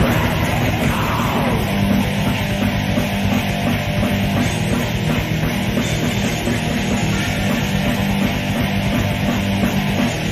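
Black death metal from a demo recording: distorted guitars, bass and drums playing fast and dense, with a falling pitch slide about a second in.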